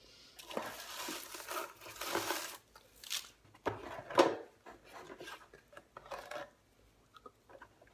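Paper and packaging rustling and crinkling in bursts as items are handled in and around a cardboard box, loudest about four seconds in.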